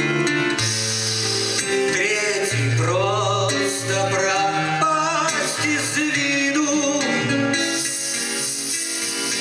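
A man singing a slow song while accompanying himself on an acoustic guitar, with plucked chords under the voice throughout.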